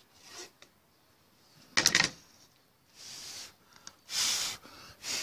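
Hands handling a wooden hive box and its freshly routed pine board: a short wooden clatter about two seconds in, then two brief scraping or brushing sounds.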